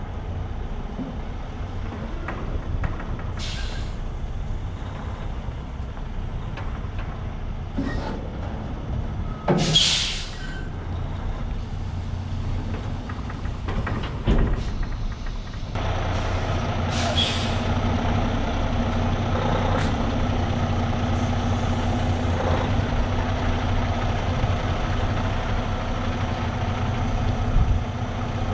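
Semi truck's diesel engine running steadily, with several short air hisses from the air brakes, the loudest about ten seconds in. The engine gets louder about halfway through.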